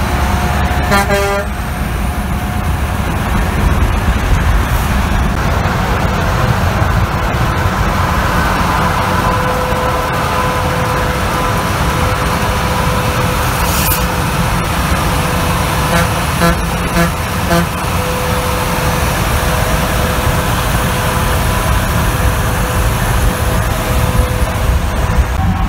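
Steady highway traffic noise from semi trucks rolling alongside, heard from inside a moving car: a low drone of tyres and engines. A few short pitched blips come about a second in and again a little past the middle.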